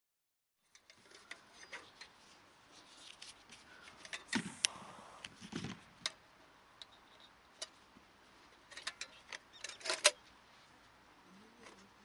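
Scattered clicks and light metallic clinks as a small metal oil hurricane lantern is handled and its wick lit with a lighter, with the sharpest clinks about four and a half seconds in and again about ten seconds in.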